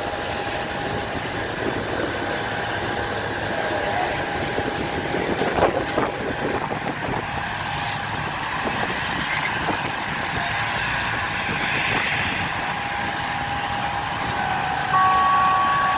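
Steady airport apron noise of a diesel ground vehicle, a motorised passenger-stair truck driving up to a parked Boeing 737-800, over a steady high tone. A few knocks come around the middle, and a steady electronic warning beep starts suddenly about a second before the end.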